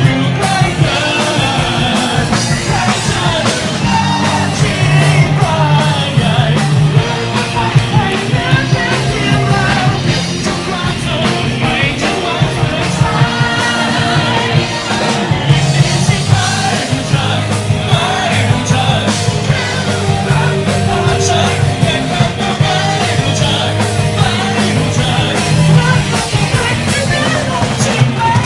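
Live rock band: a man sings into a microphone over electric guitar and drums, the band playing continuously.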